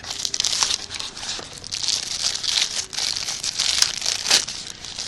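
Packaging crinkling and rustling while items are handled and taken out of a box, with a few light clicks.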